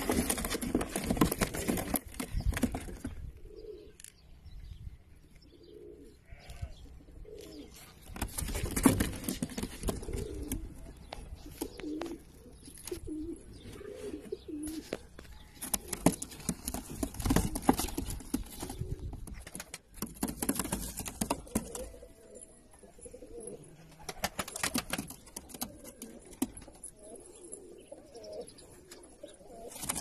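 Iraqi Zark domestic pigeons cooing over and over, with louder bursts of rustling and sharp knocks, the loudest in the first few seconds.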